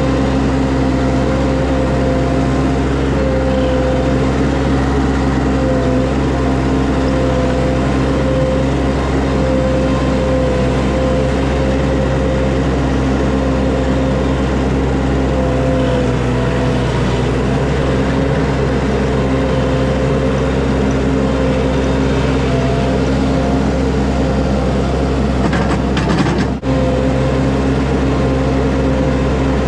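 Skid steer's diesel engine running steadily at working speed, with a steady hum and whine from the machine. About 26 seconds in it drops out for an instant.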